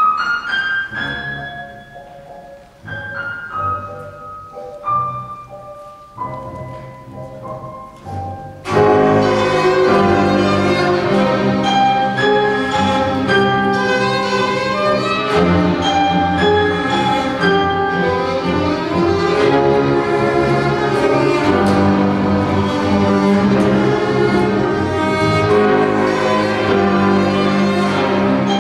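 A live chamber ensemble of violin, double bass, contrabass balalaika, piano and string quartet playing a tango. Sparse, ringing single notes open it; about nine seconds in the full ensemble comes in suddenly and loudly, led by bowed strings, and keeps playing.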